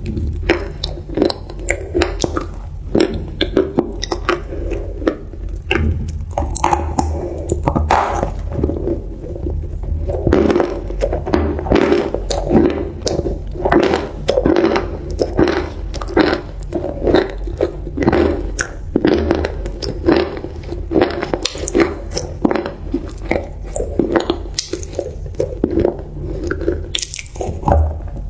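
Close-miked chewing of crunchy food: a dense run of crisp, irregular crunches and crackles with the wet sounds of mastication between them.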